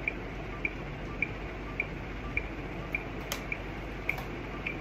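A steady, even tick repeating a little under twice a second over faint room noise, with one sharp click about three seconds in.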